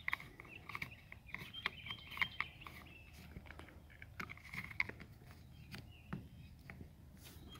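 Faint scattered clicks and taps of parts being handled, with a faint high chirping coming and going.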